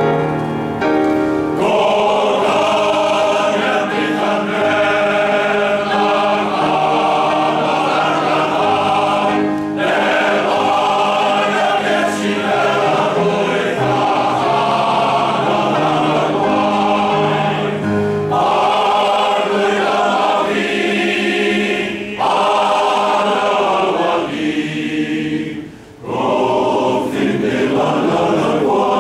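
Male voice choir singing in full harmony, coming in about a second and a half in after a piano introduction. The voices break off briefly near the end before going on.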